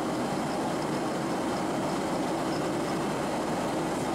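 Steady in-flight cabin noise of a Boeing 767-300ER, heard from a window seat beside the wing engine: a constant engine drone blended with rushing airflow.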